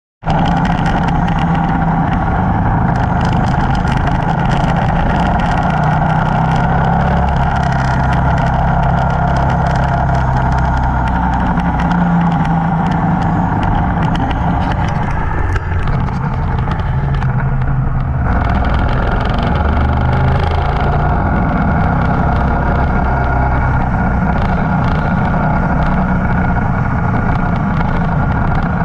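Motorcycle engine running steadily under way, mixed with road and wind noise; the sound shifts in character about two-thirds of the way through.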